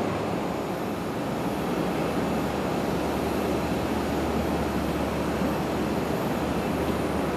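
Steady rumble of jet aircraft engines on the airfield, muffled by terminal glass.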